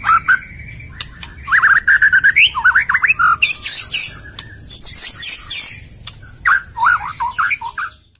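White-rumped shama (murai batu) singing: a varied run of loud whistled phrases with quick rising and falling glides, mixed with short sharp chattering notes, fading out near the end.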